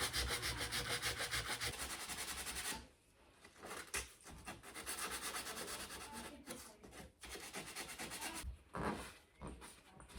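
Sandpaper rubbed by hand over dried wood filler on a wooden cabinet surface, in runs of quick back-and-forth strokes, about five a second, with short pauses.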